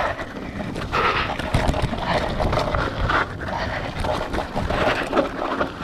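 Riding noise from a Scott Scale 970 hardtail mountain bike descending a dirt flow trail: tyres on dirt and frequent knocks and rattles from the unsuspended frame and drivetrain over bumps, under a steady rush of wind on the microphone.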